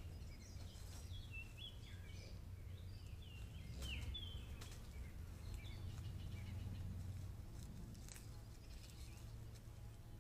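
Small songbirds chirping, many short calls sliding up and down in pitch, mostly in the first half, over a low steady hum, with a few brief clicks.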